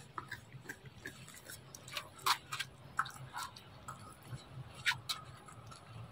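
Long-tailed macaque chewing a mouthful of ripe mango: irregular wet smacking clicks from its mouth, a few louder ones about two seconds in and again near five seconds, over a faint low hum.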